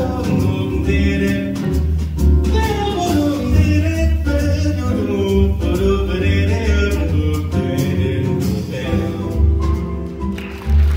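A vocal ensemble singing together into microphones, several voices at once, backed by piano, bass and drum kit.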